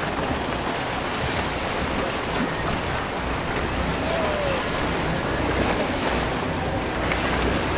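Motor yacht cruising slowly past: a steady low engine rumble under the rush of water along its hull and wake, with wind on the microphone.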